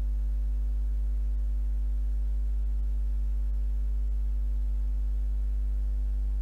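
A steady, unchanging low electrical hum with a buzzy edge, typical of mains hum in the recording.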